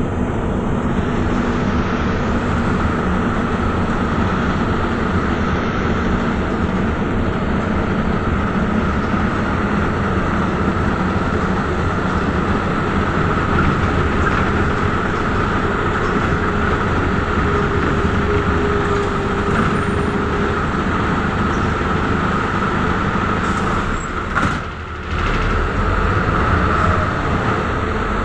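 Inside an Ikarus city bus on the move: steady engine and road noise. About 24 seconds in the noise briefly dips, then comes back.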